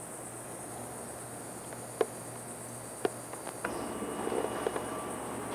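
Insects buzzing steadily, a high shimmering drone, broken by two sharp clicks about two and three seconds in. A little past halfway a louder, busier background comes in.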